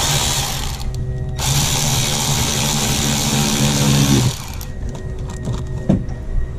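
A small handheld power tool such as a drill runs in two bursts: a short one, then one of about three seconds.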